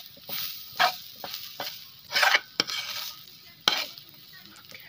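Metal spoon stirring grated coconut as it roasts in a pan: several irregular scraping strokes of the spoon against the pan and through the dry coconut.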